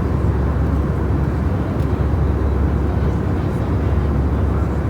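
Steady low rumble of an airliner's engines and airflow heard inside the passenger cabin.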